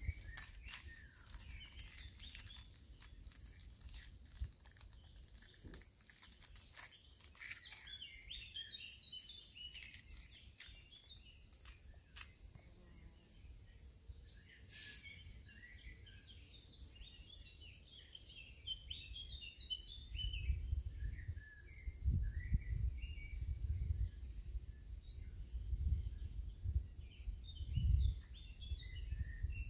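Outdoor ambience: a steady high insect trill with scattered bird chirps over it. Faint clicks of small sticks being handled come in the first part, and low muffled rumbles come in irregular gusts in the last third.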